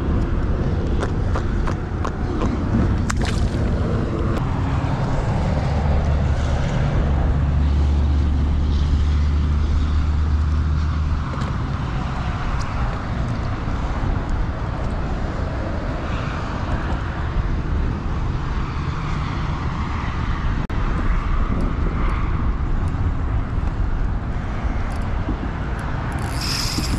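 Wind rumbling on the microphone, with a low steady hum for several seconds in the middle and a brief hiss near the end.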